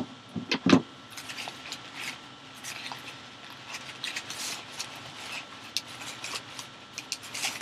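Packing paper rustling and crinkling as it is handled and pulled off a boxed football, with two sharp knocks about half a second in.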